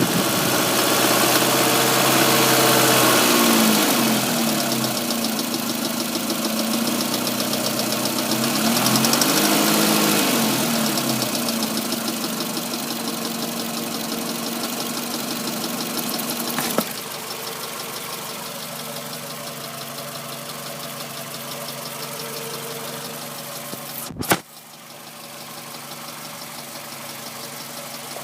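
Engine with a rapid ticking, revved up and back down twice, then settling to a steady idle. A sharp knock near the end.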